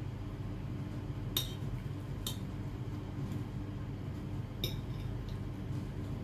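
A metal spoon and fork clinking against a plate three times, about one and a half seconds in, a second later, and again near two-thirds of the way through, over a steady low hum.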